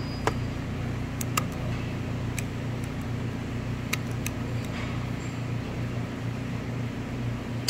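Steady low machine hum, with a handful of light, sharp metallic clicks as snap-ring pliers and a pick work at a snap ring on a gearbox main shaft.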